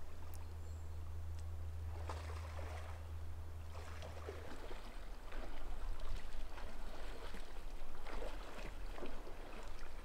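A moose wading through shallow water, its legs splashing in irregular bursts from about two seconds in. A low rumble runs under the first few seconds.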